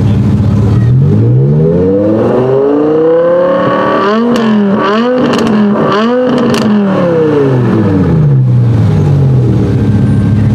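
BMW M5 E60's V10 with an Eisenmann Race Exhaust, revved while standing: from idle it climbs slowly for about three seconds, gives several quick blips, then falls slowly back to idle.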